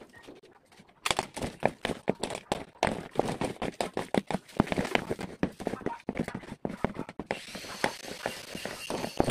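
Rapid, irregular cracking and snapping of leafy branches being handled and broken in a tree. About seven seconds in, the steady high whine of a small battery-powered saw's motor running joins it.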